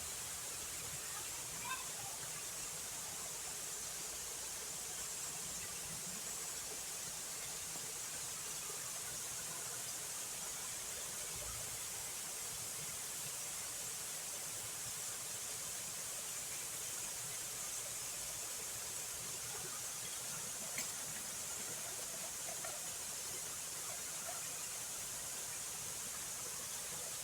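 Steady high-pitched hiss of outdoor background noise, with one faint click about twenty-one seconds in.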